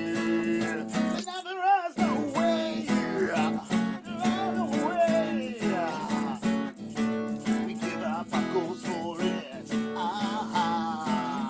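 Acoustic band music with no words: a strummed acoustic guitar in a steady rhythm under a wavering lead melody. The low accompaniment drops out briefly about a second and a half in, leaving the melody alone.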